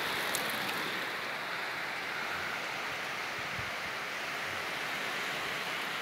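Hurricane rain and wind making a steady, even hiss.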